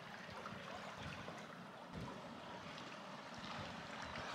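Faint, steady sound of flowing river water.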